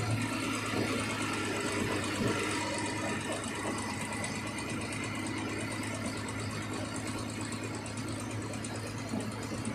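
An engine running steadily at an even, unchanging speed.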